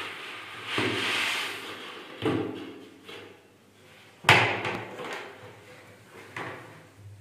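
The last of the wheat grain rushes out of a plastic bucket into a ceramic wash basin, followed by a few sharp knocks of the plastic bucket being tapped and handled. The loudest knock comes about four seconds in.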